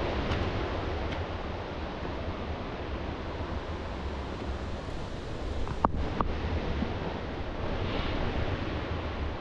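Steady rushing noise, with two short clicks close together about six seconds in.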